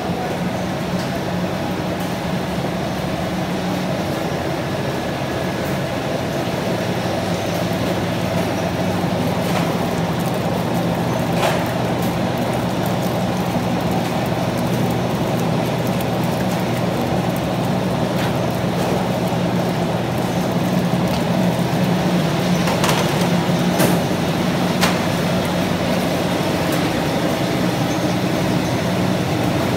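Steady hum and rumble of shrimp-processing line machinery, the conveyor belts running. A few sharp knocks and clatters stand out over it, about a third of the way in and again near the end.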